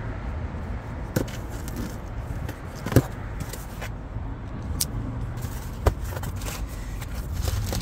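A steady low rumble with a few sharp, separate clicks and knocks, from boxes and packaging being handled.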